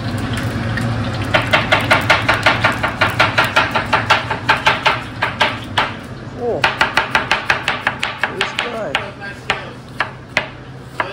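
Knife chopping cooked carnitas pork on a cutting board: two fast runs of about five strokes a second with a short pause between, then a few slower chops near the end.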